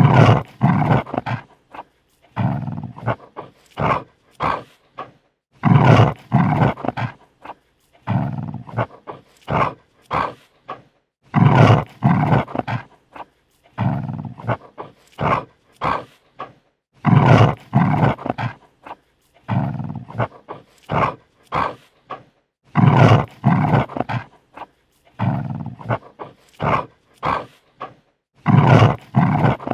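A dog snarling defensively, in repeated bouts of short snarling bursts, one bout about every three seconds with brief silences between.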